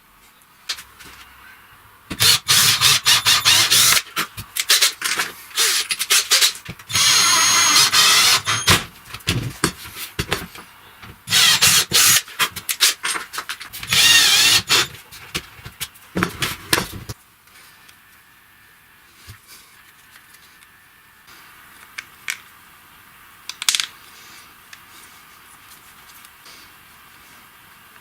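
A handheld power tool, such as a drill, run in three short spells in the first half, with clicks and knocks between them. After that, only scattered light clicks.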